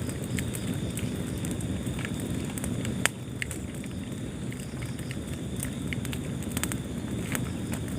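Wood fire burning in a fireplace: a steady low rumble of flames with scattered sharp crackles and pops, one louder pop about three seconds in.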